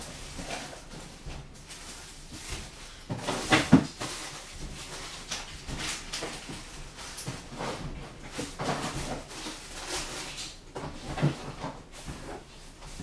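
Irregular knocks and clatter of things being handled in a kitchen, the loudest knock about three and a half seconds in.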